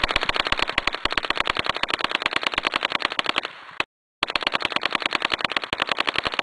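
Brass Gatling gun firing a rapid, even string of shots, about ten a second. The firing breaks off briefly just before halfway, resumes, and stops near the end with an echoing tail.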